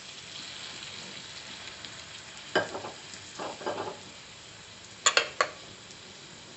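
Chopped onions and freshly added tomatoes sizzling in hot oil in a stainless steel pan, a steady crackling hiss. A spatula scrapes through the pan a few times in the middle, and two sharp knocks on the pan come about five seconds in.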